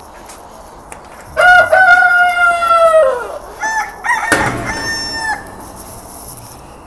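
A rooster crowing: one long crow starting about a second in and falling away at its end, then a shorter crow.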